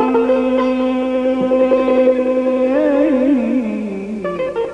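Male Persian classical (avaz) singer holding one long steady note, then breaking into a warbling ornament and sliding down in pitch. A plucked string instrument comes in near the end.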